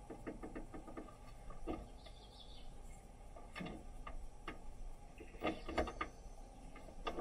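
Faint, irregular clicking from a camper van's two-burner gas hob as its knobs are pressed and turned and the ignition sparks, with no hiss of gas: the burners do not light, which she puts down to an empty or closed-off gas bottle.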